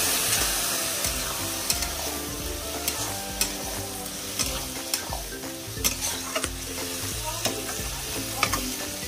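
Peas-and-mushroom curry sizzling in a kadhai with about a cup of water just added, while a ladle stirs it. The ladle knocks and scrapes against the pan at irregular moments, about seven sharp clinks over the stretch.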